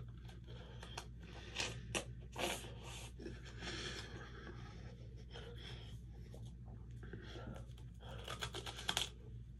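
Close-up eating sounds of an ice cream sandwich being bitten and chewed: short, irregular crunching and smacking bits, with the loudest clusters a couple of seconds in and again near the end, over a steady low hum.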